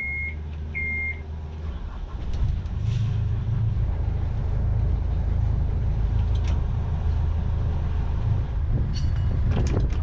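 Two short electronic beeps from the helm's engine panel, then the catamaran's diesel engines starting and running with a steady low rumble that grows louder about two seconds in.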